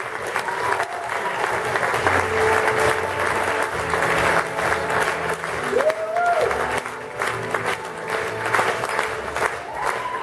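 Audience and cast applauding steadily at a theatre curtain call, with music playing underneath.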